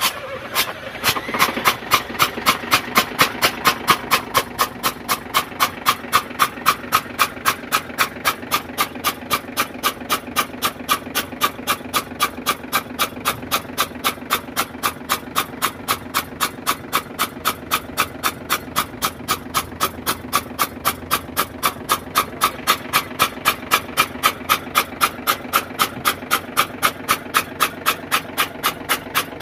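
Six-cylinder diesel engine of a FAW truck running with one injector removed: a sharp puff from the open injector bore about three times a second over a steady drone, as water is blown out of the flooded cylinder.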